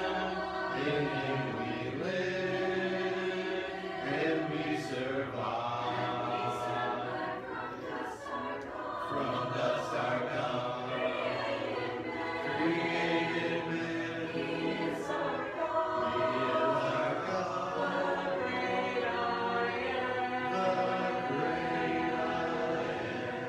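A congregation singing a hymn together, unaccompanied, in the a cappella style of Churches of Christ.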